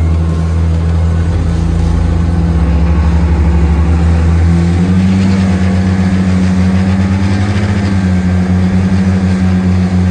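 Twin outboard motors running together in forward gear, steady and loud, with engine speed stepping up about five seconds in as the boat is throttled up.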